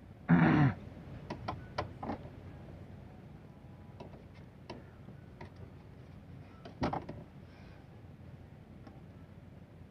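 Scattered clicks and knocks of fishing rods, reels and tackle being handled in a small wooden boat, with one brief loud pitched sound right at the start and another sharp knock about seven seconds in.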